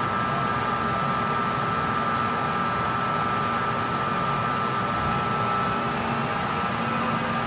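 Subway train running between stations, heard from inside the car: a steady rumble and rolling noise with a faint, steady high whine over it.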